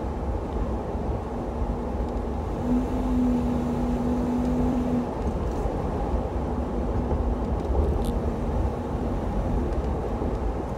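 Toyota 4Runner V6 engine and road noise heard from inside the cabin while driving, a steady rumble with a hum that grows louder for a couple of seconds about three seconds in. The engine is running smoothly after a tune-up with new NGK iridium spark plugs, distributor cap and rotor.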